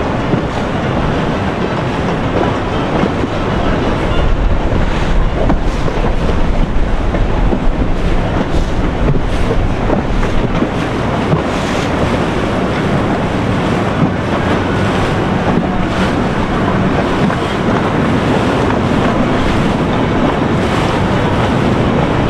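Boat engines running steadily over a rush of churning water, with wind buffeting the microphone.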